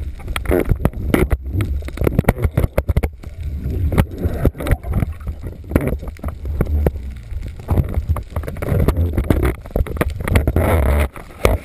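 Boat underway: a low rumble with many irregular knocks and splashes as the hull meets the chop, and wind buffeting the microphone.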